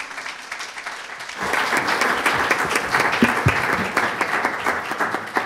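Audience applauding, swelling about a second and a half in and dying away near the end.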